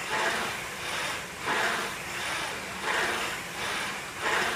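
Concept2 rowing machine's air-resistance flywheel whooshing with each drive stroke, a rushing sound that swells and fades about every second and a half, three times.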